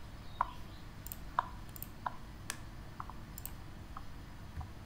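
Computer mouse clicking: a string of short single clicks at irregular intervals as a file is opened.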